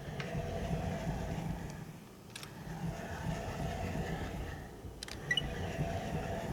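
Indoor sliding door running along its track on Panasonic MJB907 Y rollers, a rough rumbling roll in about three passes. Sharp knocks about two and a half and five seconds in, as the door reaches the end of its travel.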